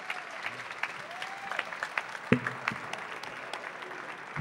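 Audience applauding, a dense patter of hand claps, with one louder knock about two seconds in.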